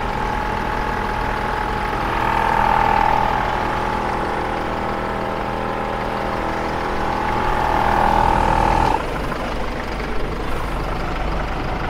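T-Max portable 4x4 air compressor running steadily with a whine while it inflates a car tyre. It cuts off suddenly about nine seconds in, leaving a low hum.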